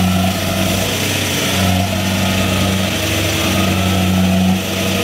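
Diesel engine of a Kubota tracked rice combine harvester running hard as it churns through deep mud, its note swelling and easing every couple of seconds under the changing load.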